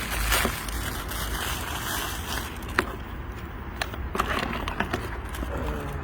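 Wind rumbling on the microphone, with a few sharp clicks and knocks of handling in the second half.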